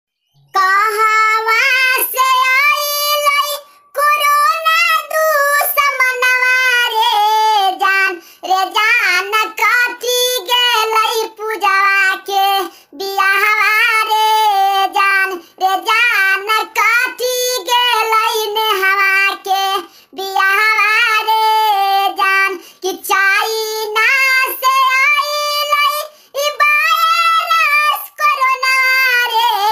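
High-pitched, pitch-raised cartoon-cat voice of the Talking Tom kind, singing in held and bending phrases with brief pauses and little or no accompaniment.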